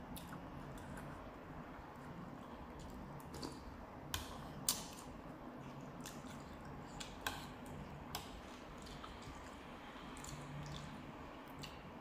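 Close-up eating sounds of a person eating Thai beef noodle soup: wet chewing and squishing of noodles and beef, with a few sharp clicks of the spoon and chopsticks, the loudest about four to five seconds in.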